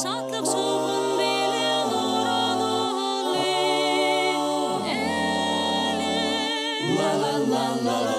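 Mixed-voice a cappella group singing held chords over a low bass line, the chords changing every second or two.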